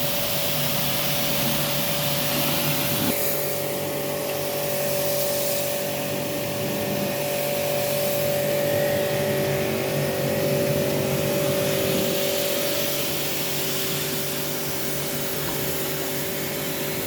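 Portable pressure washer used for AC cleaning, running with a steady motor hum over the hiss of water from its spray gun. The hum shifts in pitch about three seconds in.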